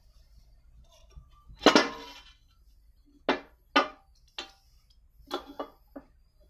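A loud clatter with a short ringing tail, then six sharper knocks spaced irregularly over the next few seconds.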